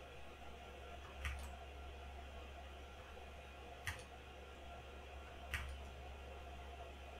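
Three separate key presses on a Lychee G80 Pro mechanical keyboard, each a single sharp click, spaced a second or two apart.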